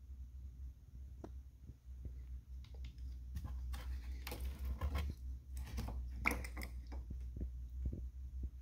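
Radiator pressure cap of a Nissan Altima being twisted off by hand: a run of clicks and scraping rustles in the middle of the stretch, over a steady low hum.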